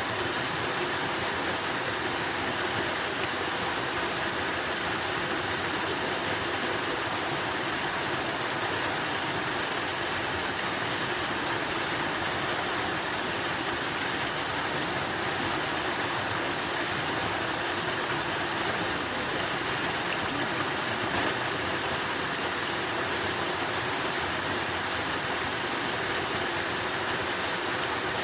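Water flowing steadily, an unbroken rushing noise with no breaks or changes.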